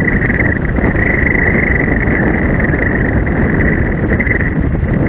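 CFM LEAP-1A turbofans of an Airbus A321neo taxiing, a steady high engine whine over a low rumble, with wind buffeting the microphone.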